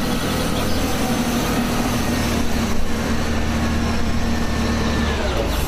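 Caterpillar 966K wheel loader's diesel engine running steadily under load as the machine raises its high-tip bucket, a low rumble with a steady whine that drops in pitch about five seconds in.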